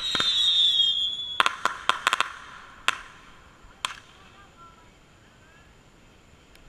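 Consumer aerial firework going off: a whistle that sinks slightly in pitch for about a second and a half, then a quick cluster of sharp crackling pops, two more single pops about a second apart, and then it dies away.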